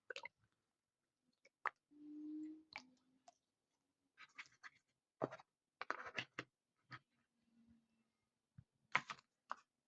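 Quiet, scattered soft clicks and taps of small fidget toys and their plastic packaging being handled and set down, with a brief faint hum about two seconds in.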